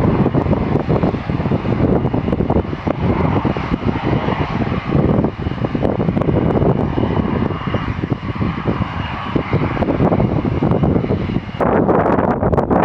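Boeing 787-8 Dreamliner's Rolls-Royce Trent 1000 engines at takeoff power as the jet rolls away down the runway: a heavy, steady rumble with crackle through it. About a second before the end, the sound gives way to wind buffeting the microphone.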